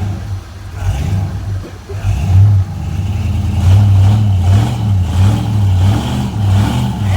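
Off-road truck's engine revving up and down in repeated bursts, its low note rising and falling as it is worked over rough ground.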